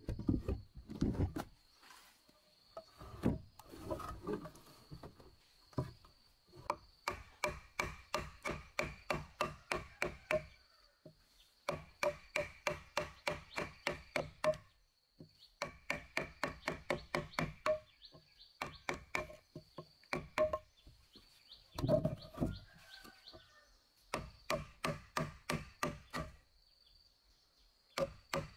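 Wooden mallet striking the handle of a steel chisel in quick runs of sharp knocks, about four or five a second, with short pauses between runs, as the chisel pares a rounded edge on a timber block. A thin steady insect drone runs underneath.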